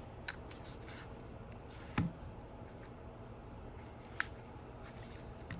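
A razor blade prying at the adhesive under a stuck iPhone 11 screen: a few faint scrapes and sharp clicks, the loudest about two seconds in, over a steady low hum.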